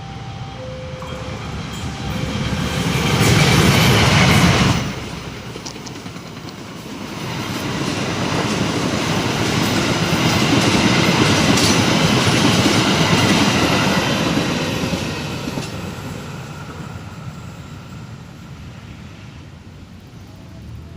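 Trains passing with rail clatter: one loud pass that cuts off sharply about five seconds in, then a second pass that swells, peaks mid-way and fades away. An alternating two-tone beeping warning signal sounds over the first few seconds.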